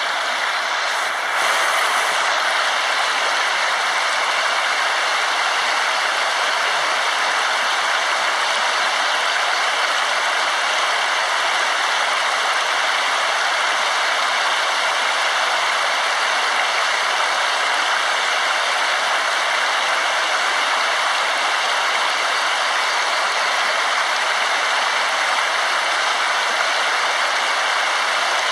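Waterfall: water falling and rushing in a steady, unbroken hiss, a little louder from about a second and a half in.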